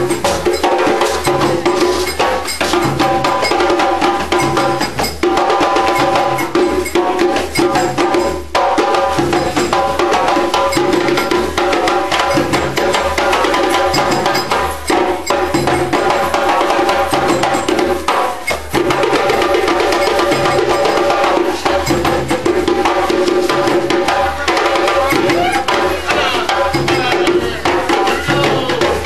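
Live group music: hand drums and percussion keeping a steady beat under sustained sung or played melody lines.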